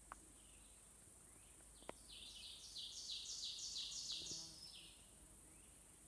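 A songbird singing one song of quickly repeated two-note phrases that grows louder and then stops, from about two seconds in to near five seconds, over a steady high hiss.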